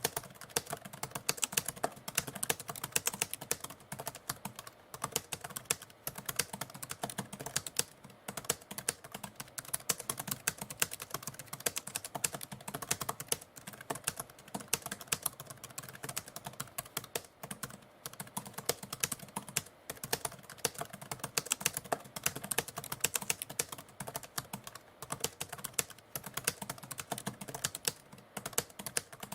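Typewriter keys being struck in a fast, continuous stream of clacks, broken by a few brief pauses.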